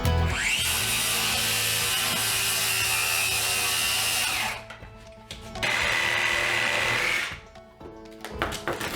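A power tool spins up with a rising whine and runs steadily for about four seconds, stops, then runs again for about a second and a half. Background music plays underneath.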